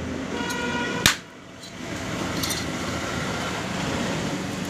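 Motorcycle cylinder head being fitted onto the engine block: a short metallic ring, then one sharp metal clink about a second in, over a steady background hum.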